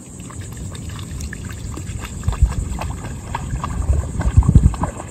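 Shallow water splashing and trickling in small irregular bursts, with low thumps that are loudest near the end.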